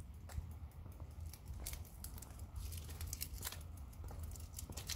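Wind rumble and handling noise on a hand-held phone's microphone, with scattered, irregular clicks and rustles.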